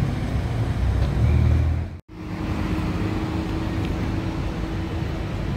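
A white Ferrari's engine running deep and loud as the car pulls away, cutting off suddenly about two seconds in. Then comes street traffic with a double-decker bus passing, giving a steady engine hum.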